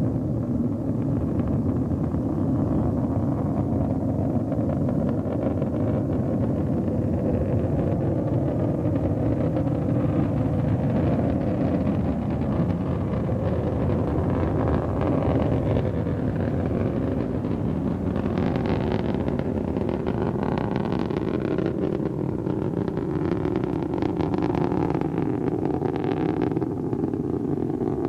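The Atlas IIAS rocket's liquid-fuelled engines and solid strap-on boosters are heard from afar as a steady low rumble. A ragged crackling grows in over the second half.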